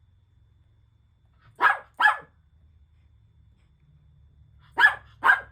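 Small dog barking in two quick pairs of sharp barks, a few seconds apart, demanding help to get its toy.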